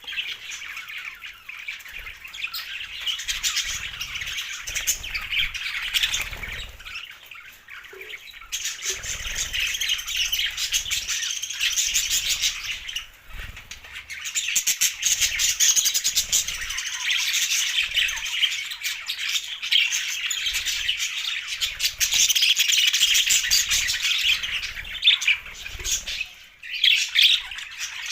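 Budgerigars chattering and chirping continuously in fast, warbling runs, with short squawks and clicks mixed in; the chatter thins briefly twice, about midway and near the end.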